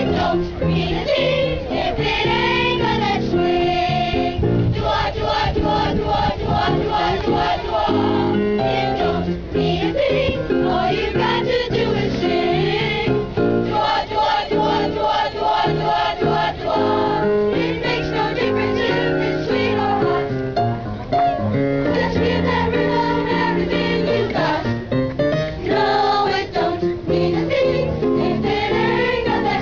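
A boys' choir singing a song over instrumental accompaniment.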